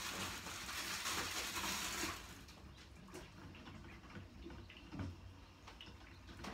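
Water running, a steady hiss that stops about two seconds in, followed by a few faint clicks and knocks.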